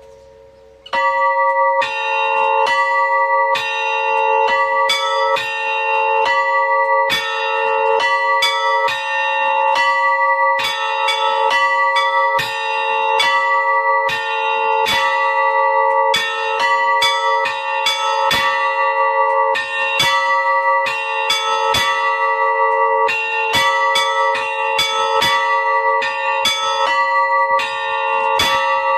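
Three antique bells rung in a quick rhythmic pattern, struck about two times a second, their tones ringing on under each other. The ringing starts about a second in.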